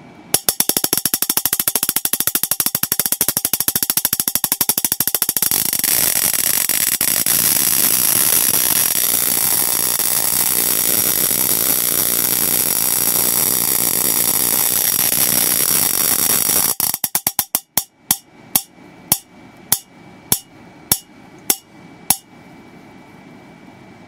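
High-voltage spark gap, fed by a flyback transformer and a capacitor bank, firing as water drops fall between its electrodes. It starts as very rapid popping, merges into a continuous crackle at the highest drop rate, then breaks up into separate loud pops about every half second that stop, because the drip is being throttled back.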